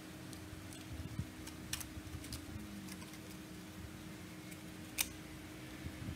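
Sharp plastic clicks and taps as a small digital power-supply module is handled and pushed into a white plastic front panel, the loudest click about five seconds in. A faint steady hum runs underneath.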